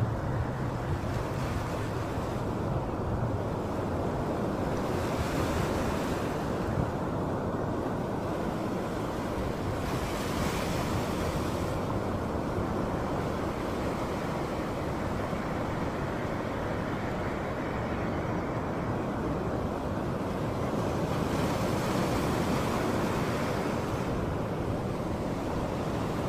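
Ocean surf breaking and washing up a beach: a steady rush that swells louder a few times as waves come in.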